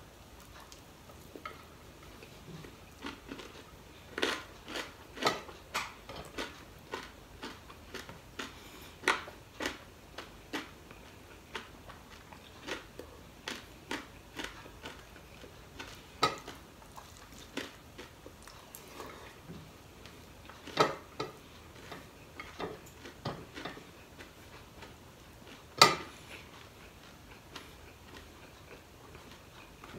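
Eating with the hands from a ceramic plate: scattered small clicks and clinks of fingers, food and dishware, with two louder knocks, one about two-thirds of the way through and one near the end.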